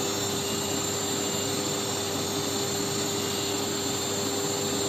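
Steady drone of a running electric motor in the workshop, even throughout, with a constant hum tone and no cutting going on.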